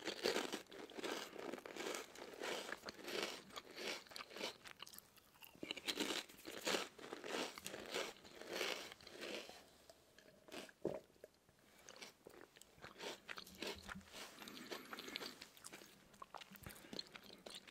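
Thin potato chips bitten and chewed close to the microphone: loud, dense crunching for about the first ten seconds, then softer, sparser chewing.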